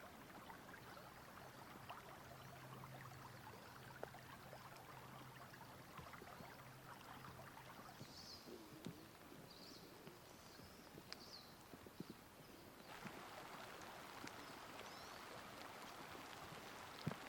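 Near silence: faint outdoor ambience, with a low steady hum through the first half, a few faint high chirps around the middle, and scattered faint ticks.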